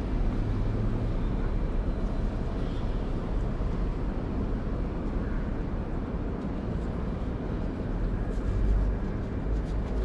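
Steady low rumble of street traffic, swelling briefly near the end as a vehicle goes by.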